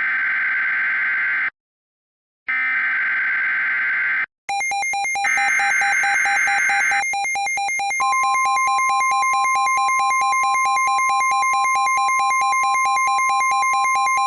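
Three short bursts of screeching digital SAME header data, typical of NOAA Weather Radio. A rapidly pulsing electronic alarm starts about four seconds in. The steady 1050 Hz warning alarm tone joins about eight seconds in and holds, signalling that a new warning bulletin follows.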